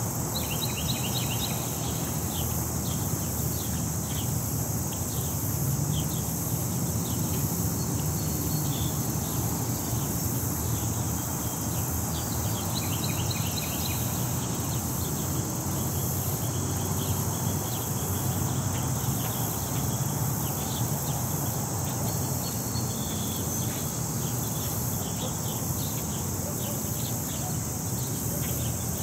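Outdoor park ambience: insects droning steadily at a high pitch, small birds chirping in short quick twitters now and then, over a low, steady rumble of city traffic.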